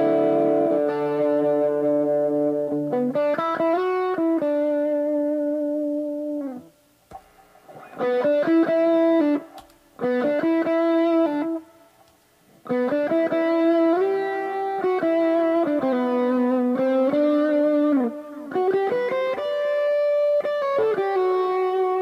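A Joodee JLP-55, a 1970s Japanese-made Les Paul-style electric guitar, is played in a slow melodic line of held notes and double-stops. Some notes bend up and down, and the playing breaks off briefly about seven, ten and twelve seconds in.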